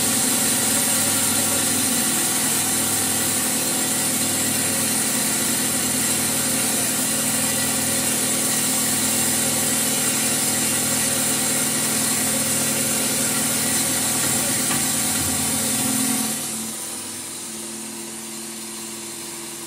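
10 HP cattle feed and wheat grinder machine running, grinding wheat fed from its hopper: a loud, steady grinding noise over the machine's hum. Near the end the grinding noise drops away and the machine runs on more quietly.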